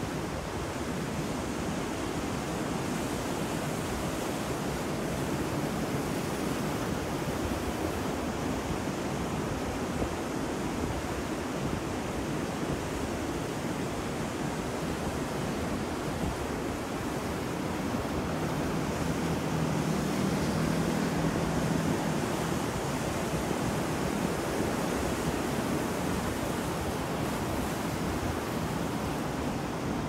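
Ocean surf breaking and washing up a beach in a rough, choppy sea: a continuous rush of waves, a little louder for a few seconds past the middle.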